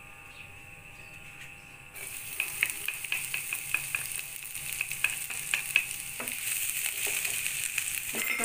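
Chopped garlic hitting hot cooking oil in a nonstick frying pan: about two seconds in a sizzle starts suddenly, full of little crackling pops, and grows louder. Near the end a wooden spatula stirs the garlic through the oil.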